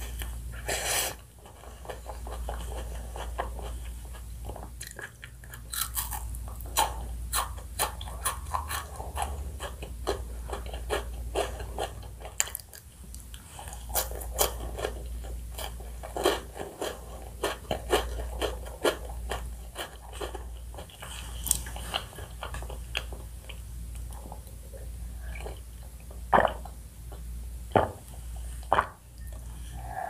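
A person chewing and crunching crispy chocolate desserts close to the microphone: a dense run of small crackles and crunches, with a few sharper, louder bites near the end.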